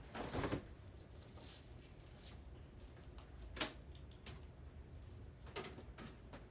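A few faint, sharp clicks and taps over a low, steady background.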